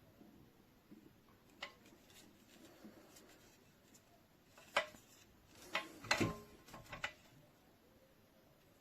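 Handling noise: a scatter of sharp clicks and knocks, with a louder click about halfway through and a cluster of clicks with a dull thump a little after.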